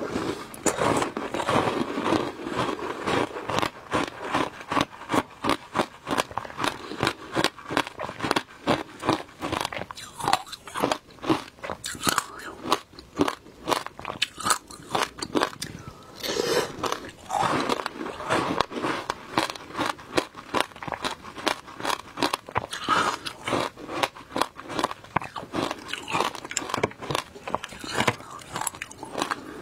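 Ice being bitten and crunched in the mouth, with passion fruit and its seeds: a rapid, continuous run of sharp crunches, several a second.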